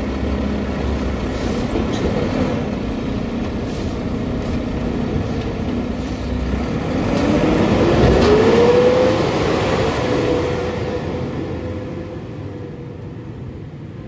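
Mack LEU side-loader garbage truck with a Heil Multitask arm, its engine and arm hydraulics running while a recycling cart is tipped and set back down. About seven seconds in, the engine revs up with a rising whine as the truck pulls away, then its steady note fades as it moves off.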